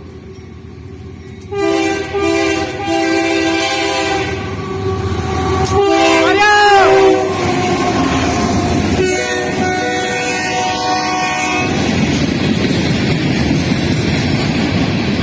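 Diesel freight locomotive's multi-chime air horn sounding in several blasts, the last cutting off about twelve seconds in, followed by the steady rumble of the train rolling past.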